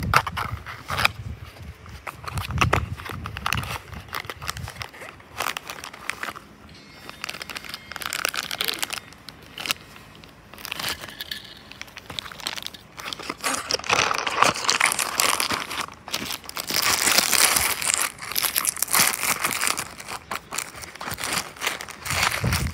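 A small cardboard toy-car box and its packaging being handled and opened: rustling, crinkling and light clicks, thickest in a long stretch past the middle, with low thumps in the first few seconds.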